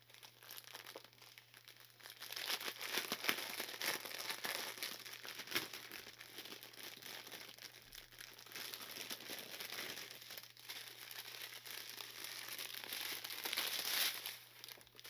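Plastic packaging of a diamond painting kit crinkling and rustling as it is handled, in an irregular run of crackles that grows louder a few seconds in and again near the end.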